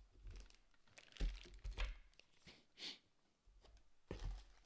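Unboxing handling noise: scattered small clicks and knocks, with a brief rustle of packaging near the middle.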